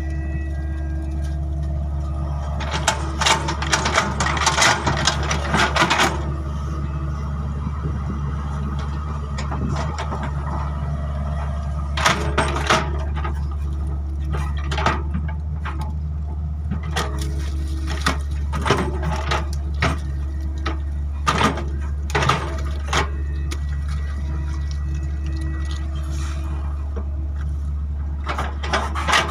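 Excavator's diesel engine running steadily with a low hum, broken every few seconds by bursts of clanking and cracking as it works the ground.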